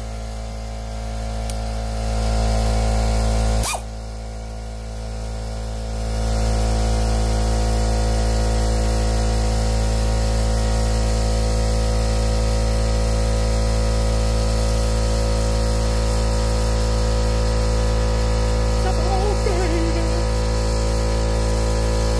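Small 4-gallon portable air compressor running steadily after cutting in, refilling its tank after the air ratchet drew it down. There is a click and a brief dip in level about four seconds in.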